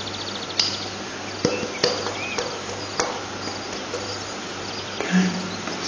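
A few sharp clicks and light knocks as pitted green olives are shaken out of a glass jar and dropped onto a pizza, over a steady hiss.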